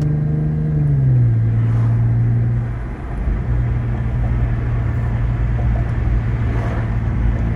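Infiniti G37's 3.7-litre V6 running through an ISR single-exit exhaust under way. Its note drops in pitch about a second in, as the revs fall, then holds a steady tone with a low rumble.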